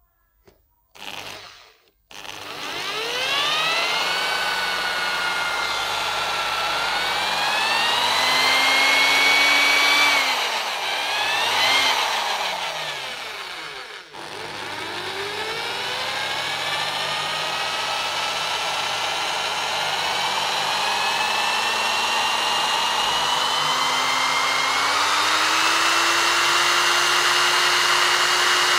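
Electric drill spinning a belt-driven car alternator: after a short blip, the drill's motor whine climbs in pitch as it speeds up, dips and surges, cuts out briefly about halfway, then starts again and slowly climbs higher.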